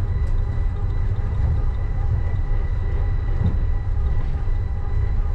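Uijeongbu Light Rail car, a rubber-tyred VAL automated train, running along its guideway, heard from inside the cabin. A steady low rumble with a thin, steady high whine over it.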